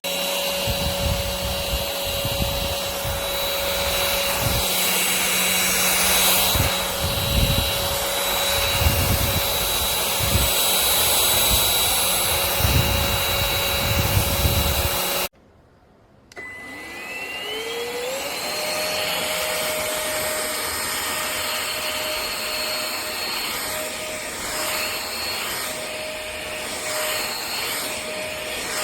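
Cordless stick vacuum running with a steady high whine, with low thuds in the first half. About halfway through it cuts off abruptly, and a second later the motor spins up again with a rising whine and settles into steady running.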